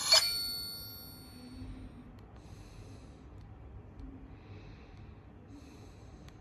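Nokia 7230 mobile phone ringtone ending on one bell-like note that rings out and fades over about a second and a half, followed by faint room noise.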